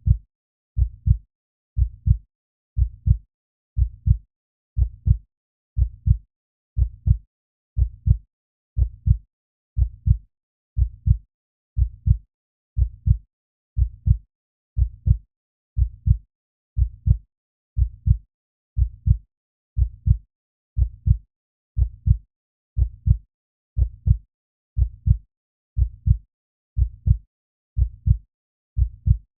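Slow human heartbeat in a steady rhythm of about one beat a second, each beat a pair of low thumps (lub-dub).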